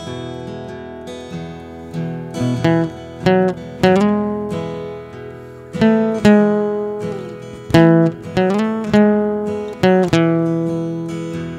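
Acoustic guitar played solo and fingerpicked, picking out a slow melody of single plucked notes that ring and fade. A few of the notes slide in pitch.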